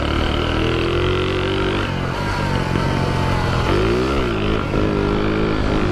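Shineray 49cc motorcycle engine pulling in second gear under throttle; its revs dip and climb back about four seconds in. The rider says this engine is knocking.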